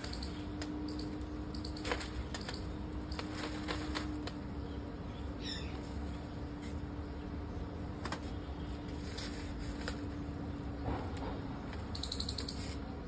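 Large kites' thin sails rustling and crackling as they are handled and turned, in scattered crinkles with a louder crackling burst near the end as one kite is swapped for another. A faint steady hum runs underneath.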